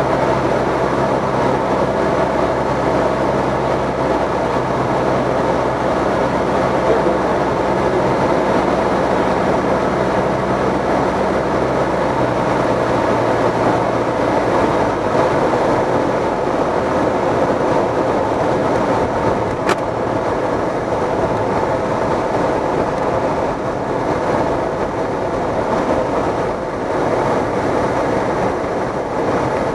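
Cessna 172's piston engine and propeller droning in the cockpit, mixed with steady rushing airflow, on final approach. About halfway through the low engine tone drops away, as with power coming back. A single sharp click a little after that.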